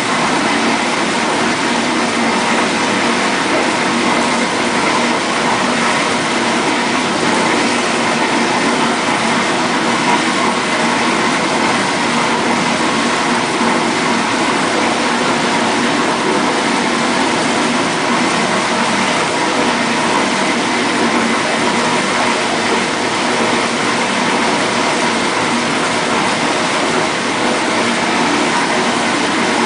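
1958 GE Mobile Maid portable dishwasher running its wash cycle: water spraying and splashing inside the tub over a steady motor hum, unchanging throughout.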